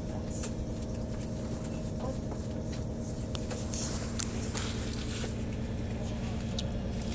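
Train carriage running: a steady low rumble with a faint steady hum, and a few sharp clicks or knocks about halfway through.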